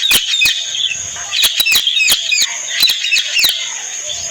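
Parrot chirping in a quick series of short, sharp calls.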